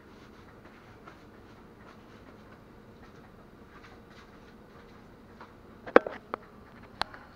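Faint sizzling and crackling of chicken and pork frying in a covered pan over a gas flame. About six and seven seconds in, a few sharp knocks and clicks from handling.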